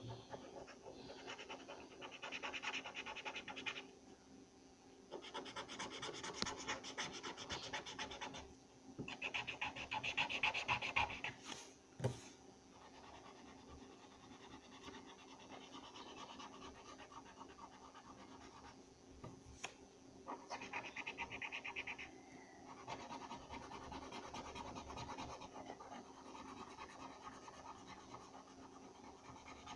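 Red felt-tip marker scribbling on paper while colouring in an area: faint rapid scratching strokes in spells of a few seconds each, with short pauses between them.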